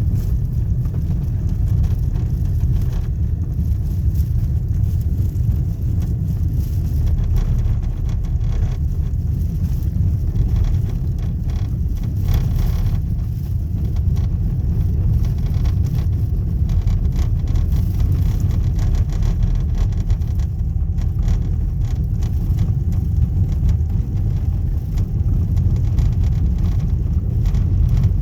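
Car driving on a gravel road: a steady low rumble from the tyres on gravel, with irregular knocks from the car itself as it goes over the rough surface.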